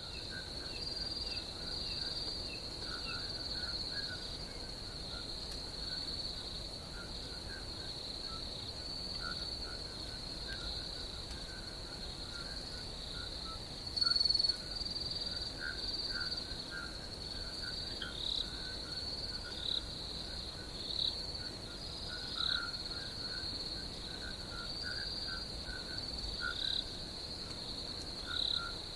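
Steady high-pitched trilling of insects, with scattered short chirping calls over it and one brief louder sound near the middle.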